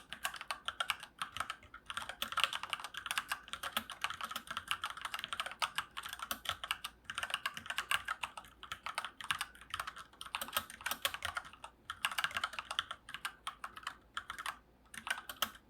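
Typing on an iRocks K75M mechanical keyboard with light-actuation Gateron Red linear switches: rapid, continuous keystroke clacks broken by a few short pauses.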